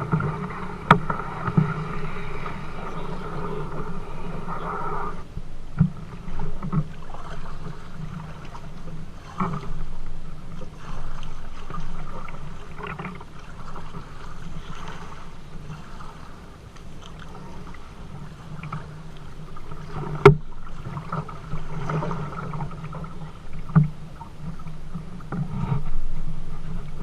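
Kayak under paddle on a river: paddle strokes and water against the hull, with a sharp knock about a second in and a louder one about twenty seconds in.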